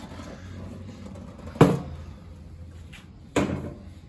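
Sheet-metal blower housing from an ACiQ air handler being handled and set on a concrete floor, knocking twice, about a second and a half and three and a half seconds in, each knock ringing briefly. The first knock is the louder.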